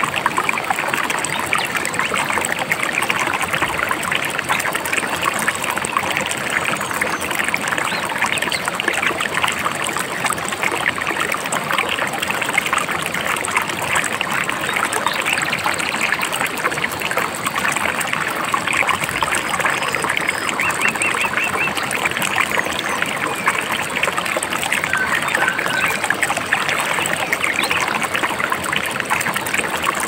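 A river babbling steadily. A few faint short bird chirps come through about two-thirds of the way in.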